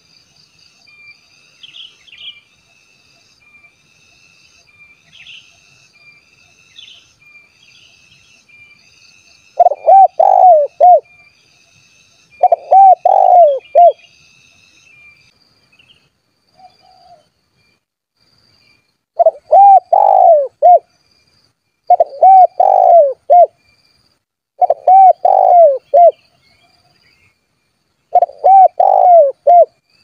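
Spotted dove (tekukur) cooing in full song: six loud phrases of several low coo notes, each about a second and a half long, repeated every few seconds from about a third of the way in. Before the first phrase there is only faint high chirping.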